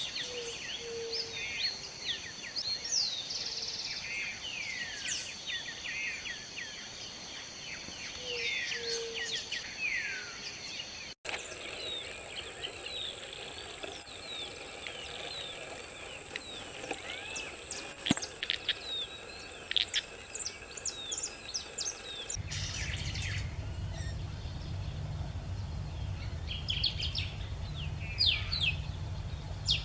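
Wetland birds calling and chirping, many short rising and falling notes overlapping. The sound changes abruptly twice, about a third and two thirds of the way through, as one recording gives way to another. A steady high tone runs through the middle part, and a low rumble is under the birds in the last part.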